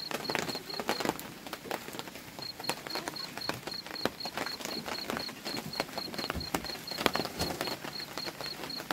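Irregular rustling and crackling of fresh leafy fodder being pushed into a wooden feeding trough while goats pull at it and feed. A thin, high, pulsing chirp runs in the background, with a break of about a second and a half near the start.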